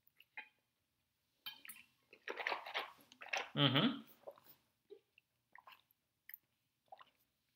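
Mouth noises close to the microphone from a person, ending in a short voiced sound about three and a half seconds in, then a few faint clicks.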